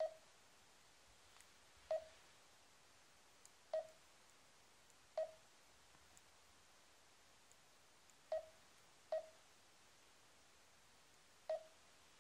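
Garmin dēzl 760 LMT sat-nav giving short single key beeps as its touchscreen menu buttons are tapped: seven beeps, spaced one to three seconds apart.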